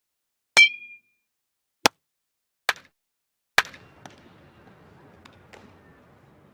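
Baseball bat striking a ball: four separate sharp hits, the first the loudest with a brief metallic ring. A faint hiss with a few small clicks trails after the last hit.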